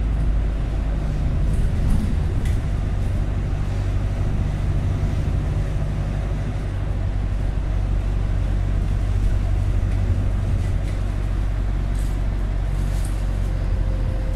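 Steady low drone of a vehicle's engine and running noise, unchanging throughout, with a few faint clicks.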